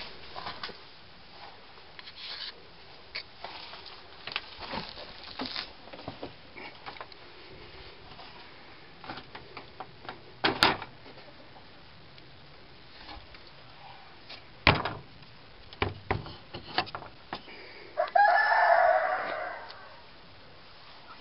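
A rooster crows once near the end, a call of about a second and a half. Before it come scattered sharp knocks and clicks, the loudest of them as load as the crow.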